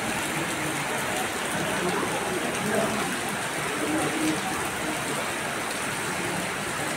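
Steady rainfall, an even hiss that goes on without a break.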